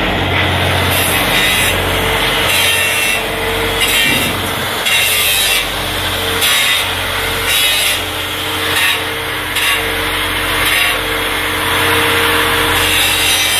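Repeated high-pitched scraping strokes, roughly one a second, over a steady machinery hum.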